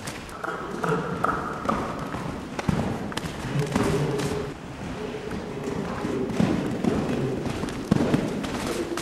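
Hoofbeats of two horses running loose on the sand footing of an indoor arena, a string of dull thuds, with voices or a whinny heard at times over them.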